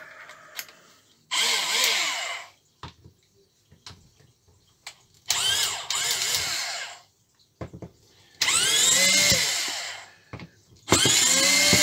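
Cordless drill-driver backing out housing screws from a hammer drill: four short runs of about two seconds each, the motor's pitch rising and falling in each run.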